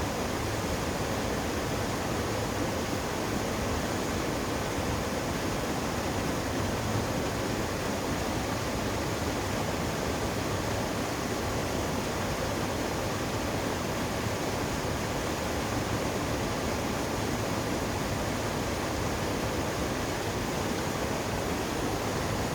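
Forest waterfall, water rushing and splashing in a steady, unbroken roar.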